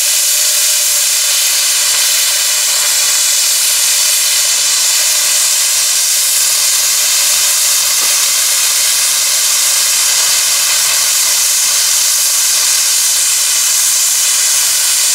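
Loud, steady hiss of steam venting from a 1915 12-ton steam roller.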